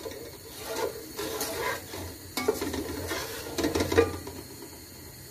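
Wooden spoon stirring chickpeas and spices in a metal cooking pot, scraping and knocking against the pot in uneven strokes that stop about four seconds in.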